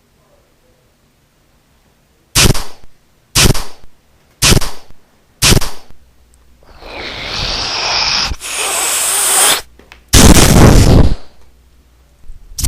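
Dubbed movie-style gunshot sound effects: four loud shots about a second apart, then a rushing noise that swells for about three seconds and a loud blast about a second long.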